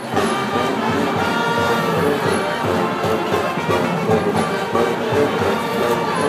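Brass-band music playing a tune, with horns carrying the melody.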